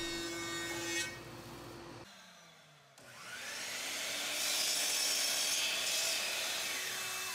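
A thickness planer running, then winding down. After a short gap, a miter saw motor spins up with a rising whine, cuts through a cherry board, and whines down as the blade coasts to a stop.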